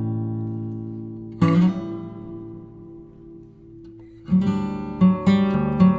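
Calm acoustic guitar background music. A chord strummed about a second and a half in rings and slowly fades, then a quicker run of strummed chords starts about four seconds in.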